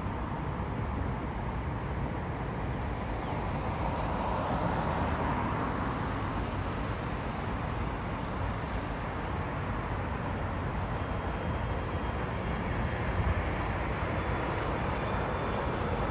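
Steady low rumble of airport and traffic noise, with the faint high whine of an approaching airliner's jet engines coming in about two-thirds of the way through and growing near the end.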